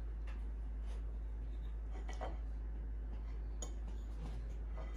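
A fork clicking and scraping lightly against a plate while cutting French toast: a few scattered faint clicks, over a steady low hum.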